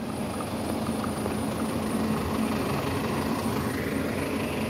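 A large bus engine running steadily close by: a constant hum over a broad rush of noise.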